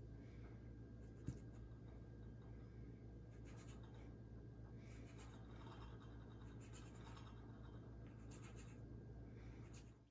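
Faint soft scrapes and taps of a small cutter pressing rounds out of rolled dough on a countertop, over a steady low hum, with one sharp click about a second in.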